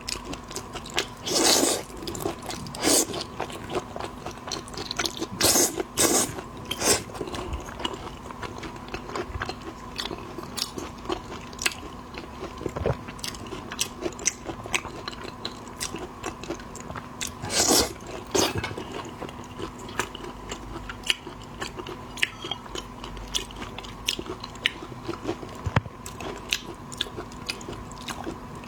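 Close-miked eating of shellfish: crunching and cracking of shell, with chewing and small clicks. The loudest crunches come near the start and again about two-thirds of the way through, over a faint steady hum.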